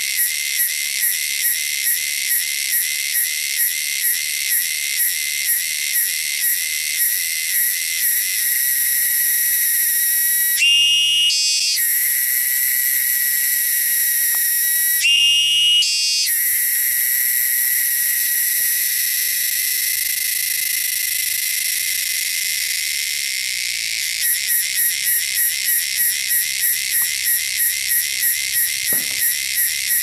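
Cicada calling loudly and shrilly. It starts as a pulsing song of about two pulses a second, swells about a quarter of the way in into a long unbroken buzz that breaks off briefly twice with short sliding tones, then returns to pulsing near the end.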